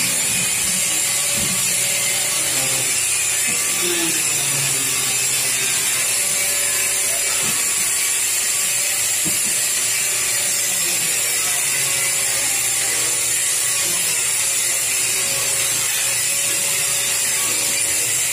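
Steady machinery noise of a metal fabrication shop: a constant high hiss with a faint mechanical hum, no distinct strikes or cuts.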